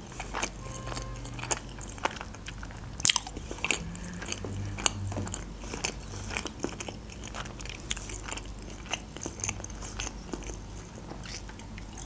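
A person chewing a mouthful of sushi rolls close to the microphone: many small sharp chewing clicks, the loudest about three seconds in.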